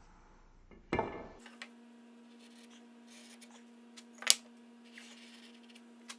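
Scattered knocks and clicks of wood and hand tools being handled on a workbench, with a sharp click a little past four seconds in, over a steady low hum.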